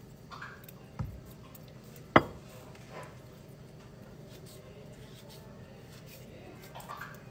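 Kitchen knife working a halved avocado held in the hand: a dull knock about a second in and a sharp click a second later as the pit is taken out, then quiet slicing of the flesh.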